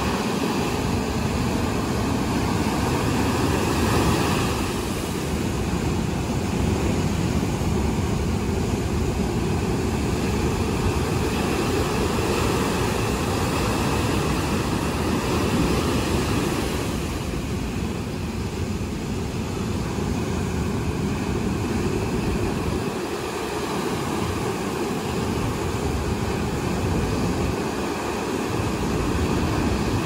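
Rough sea surf breaking and washing up a sand beach: a continuous deep rushing noise, swelling a little louder about four seconds in.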